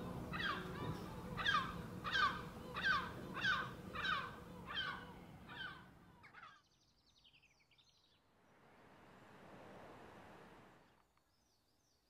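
A crow cawing repeatedly, about nine harsh calls in a steady series that stops about two-thirds of the way through. Faint small-bird chirps follow.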